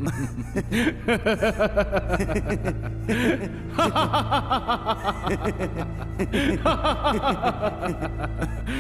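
Two men laughing together in a long, rapid run of ha-ha pulses, over a low, steady background music drone.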